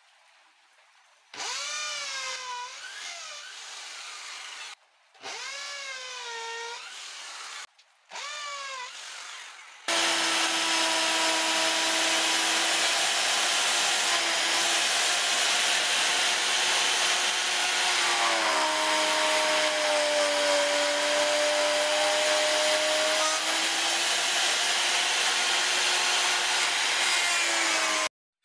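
Electric drill boring into wood in three short runs, its motor pitch swinging up and down as it loads. Then an electric plunge router runs loud and steady with a high whine while cutting a slot into a hardwood board; its pitch dips for a few seconds under load in the middle and the sound stops suddenly near the end.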